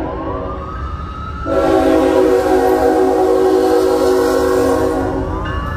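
Freight locomotive air horn sounding one long multi-note blast, starting about a second and a half in and stopping shortly before the end. A siren's rising wail can be heard before and after the blast, over a steady low rumble.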